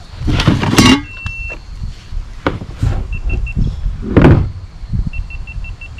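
Bumps, knocks and scraping of gear being handled on a kayak during a fight with a hooked bass, loudest about half a second in and again about four seconds in. A short high steady tone, then a few short high beeps and later a quicker run of them.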